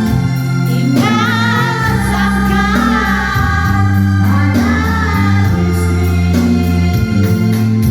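A song: a singing voice with vibrato carrying the melody over a steady bass accompaniment.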